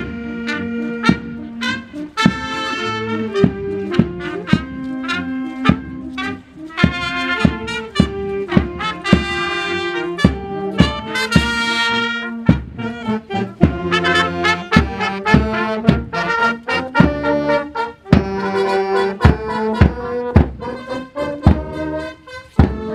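Marching brass band playing a march as it parades: trumpets, trombones and saxophones over a steady drum beat of about two strokes a second.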